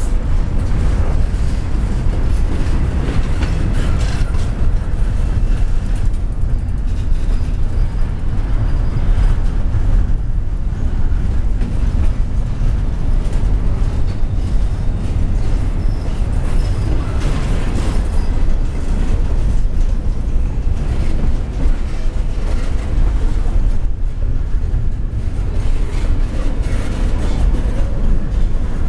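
Double-stack container well cars of a CSX intermodal freight train rolling past at close range. Their steel wheels on the rails make a steady, loud, low rumble.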